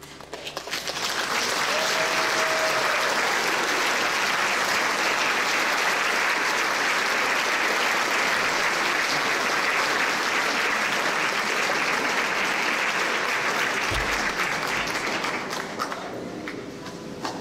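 Audience applauding: the clapping builds within the first second, holds steady, and dies away about sixteen seconds in.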